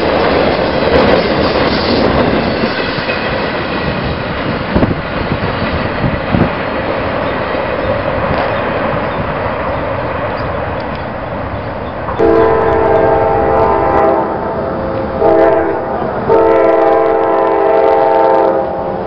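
A CSX freight train of highway trailers on flatcars rolls past with steady wheel rumble and clacking over the rail joints. About twelve seconds in, a multi-chime locomotive horn sounds three times: long, short, long.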